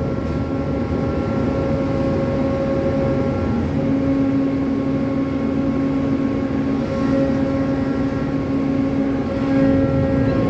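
Steady drone of the ship's cargo crane machinery working a grab bucket in a hold of wheat, with a held mechanical hum; a second, lower hum joins about four seconds in.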